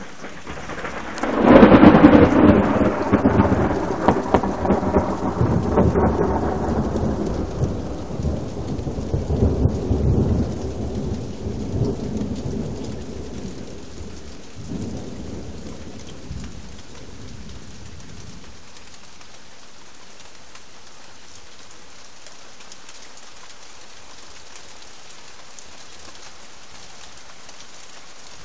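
Thunder: a loud clap about a second and a half in that rolls on in a long rumble, fading over about fifteen seconds with a smaller swell partway through. Steady rain hisses underneath and is left alone once the rumble dies away.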